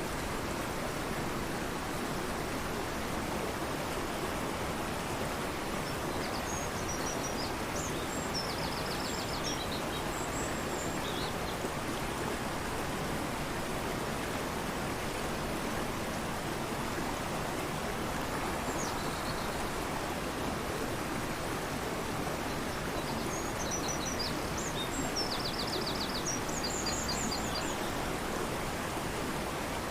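A fast, torrential river rushing steadily. Over it a small bird sings in two bouts of short high phrases with quick trills, about six seconds in and again near the end.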